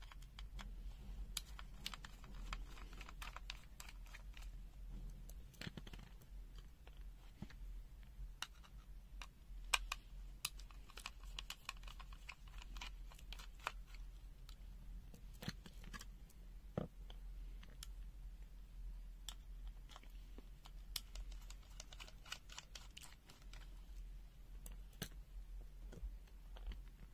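Faint, irregular small clicks and scrapes of a plastic multimeter case and its circuit board being handled and taken apart, over a low steady hum.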